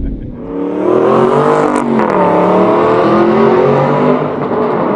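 2012 Aston Martin V8 Vantage S's 4.7-litre V8 accelerating hard, its note climbing in pitch from about half a second in, dipping briefly at an upshift about two seconds in, then climbing again.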